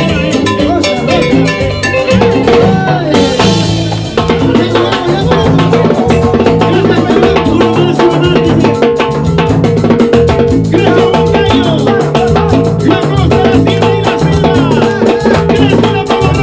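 Live band playing Latin dance music with a repeating bass line and drums. A short break comes about three seconds in, then the full band comes back in.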